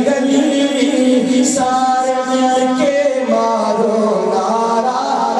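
A man singing a Punjabi naat (devotional song in praise of the Prophet) through a microphone, drawing out long held notes that shift in pitch.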